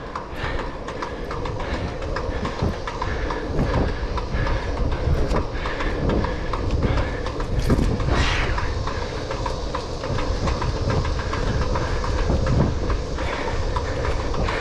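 Single-speed bicycle's freewheel clicking continuously as the bike rolls along, over wind rush on the microphone. The freewheel is one that the rider says sounds bad.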